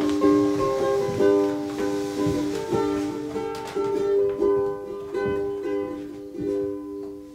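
Ukulele playing a gentle picked melody of ringing notes that grows quieter and trails off near the end.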